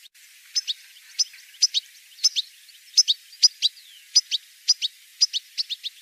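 European goldfinch calls: a rapid series of short, sharp, high-pitched call notes, many in quick pairs, about two groups a second.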